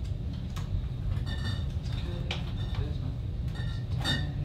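Steady low room hum, with a few faint, short high-pitched ringing sounds now and then.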